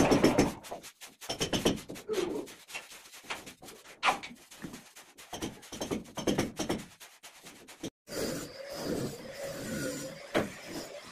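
Hand tool scraping and carving wet sand-and-cement on a ceiling, in irregular rough strokes with short pauses. Near the end, after a brief break, a steady low hum takes over.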